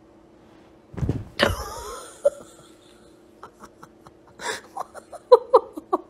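A person laughing in quick short bursts near the end, after a thump and a short cry falling in pitch about a second in. A steady low hum runs underneath.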